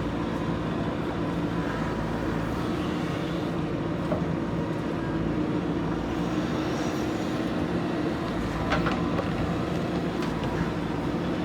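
Diesel engine of a JCB backhoe loader running steadily under work, with a couple of short clicks about nine seconds in.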